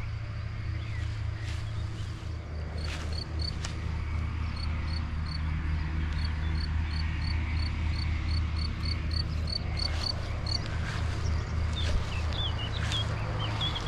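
A garden bird repeating a short, high note about three times a second for several seconds, with other birds chirping around it, over a steady low rumble.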